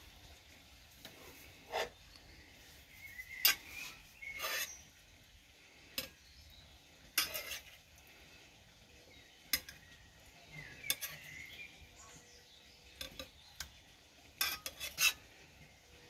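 Serving utensil clinking and scraping against a pan and a ceramic plate as pieces of fried liver are served: short, sharp clatters at irregular intervals, with a quick cluster of them near the end.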